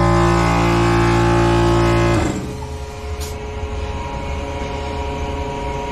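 Small Bostitch portable air compressor running steadily and loudly. It is worn out, its pistons and rings unable to pump past the pressure it has reached. About two seconds in the sound drops sharply to a quieter steady hum.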